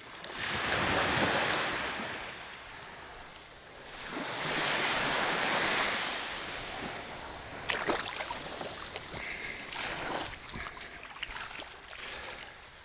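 Small waves breaking and washing up a sandy beach, two swells of surf in the first half, then a quieter wash broken by a few sharp clicks and scuffs.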